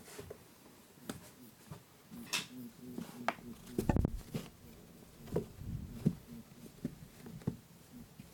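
Lop-eared rabbit honking softly in quick pulsing runs, the excited 'boo-boo' of a rabbit chasing in play. Light taps of paws on the floor, with a louder thump about four seconds in.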